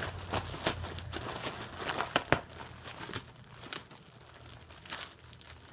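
A dachshund tearing and crumpling packaging material: a run of crinkling and sharp snaps, thicker in the first half and thinning out toward the end.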